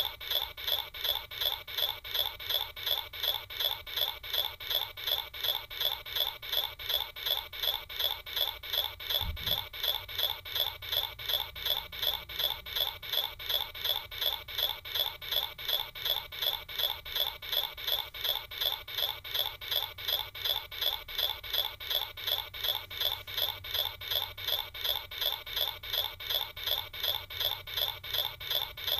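An evenly repeating scratchy, rasping pulse, about three a second, steady throughout, with a single low thump about nine seconds in.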